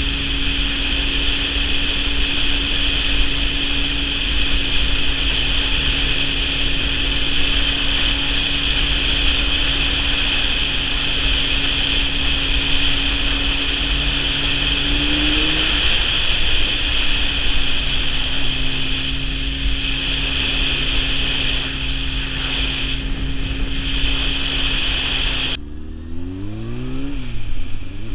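Sport motorcycle cruising at steady highway speed, its engine holding one even note under heavy wind noise on the microphone. Near the end the sound cuts to the bike at lower speed, its engine note rising and falling repeatedly as it revs and shifts.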